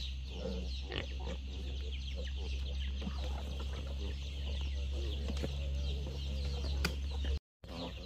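Farmyard chickens clucking over a constant, dense high peeping of many short falling notes, with a steady low hum underneath. The sound cuts out briefly near the end.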